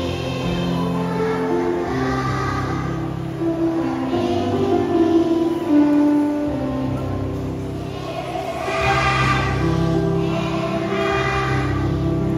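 A choir of kindergarten children singing a song together over a music accompaniment with steady low notes.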